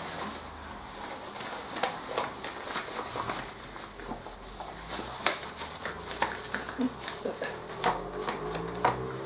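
Rubber household gloves being pulled onto the hands: irregular rubbery rustling and rubbing, with a few sharp clicks.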